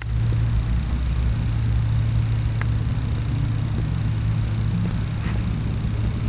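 A steady low mechanical hum with a rumble beneath it, unchanging in level throughout.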